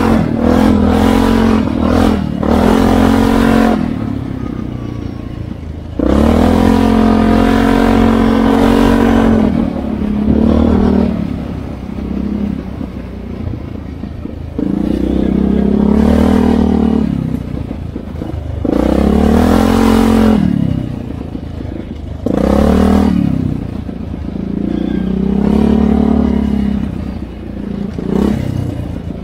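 ATV engine revving in repeated throttle bursts, its pitch climbing and falling with each burst and settling lower in between.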